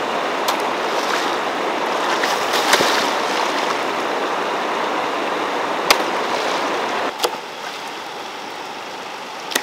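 Rushing stream water, with a few sharp knocks or splashes. The rush drops in level about seven seconds in.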